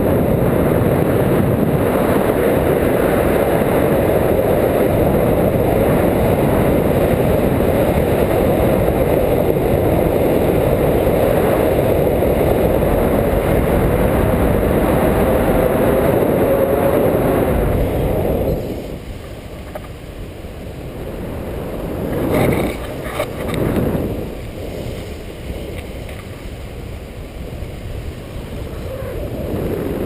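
Airflow rushing over the microphone of a pole-mounted camera on a tandem paraglider in flight: a loud, steady wind rush that drops away about eighteen seconds in, leaving softer gusts.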